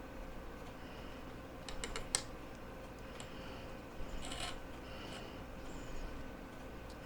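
Light clicks and taps of small tools and parts handled at a soldering bench: a quick run of sharp clicks about two seconds in and another cluster about four seconds in, over a faint steady hum.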